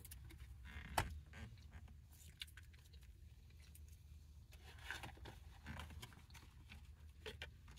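Faint scattered clicks and rustles of someone eating and handling fast-food packaging, with a sharper click about a second in.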